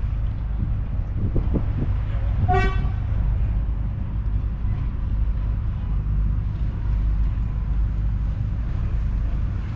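John Deere 6R 195's 6.8-litre six-cylinder diesel running steadily with a low rumble. About two and a half seconds in there is a single short horn toot.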